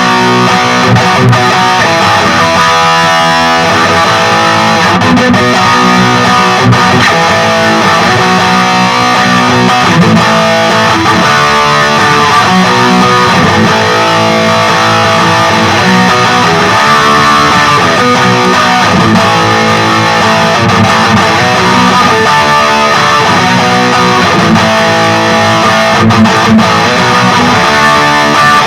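Distorted electric guitar playing riffs and chords: an LTD Deluxe guitar with active pickups through a Peavey Vypyr 15-watt modelling amp on its high-gain XXX amp setting.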